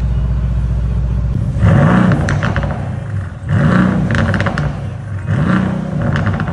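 Mercedes-AMG GLC63 S twin-turbo V8 through a muffler-delete exhaust. It runs with a steady low drone, then from about a second and a half in it is revved three times, each rev rising and falling with crackling.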